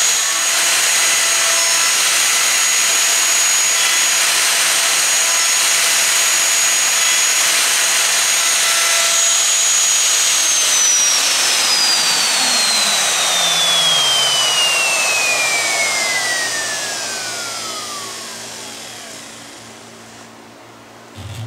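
Festool plunge router running with a steady high whine as it routes a mortise in a wooden mallet head. About ten seconds in it is switched off and the whine falls steadily in pitch as the motor and bit spin down over about nine seconds, leaving the lower hum of the dust extractor and a short thump near the end.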